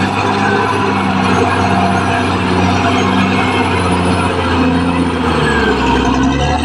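Caterpillar D6R XL bulldozer's diesel engine running steadily under load, its pitch dropping about five and a half seconds in.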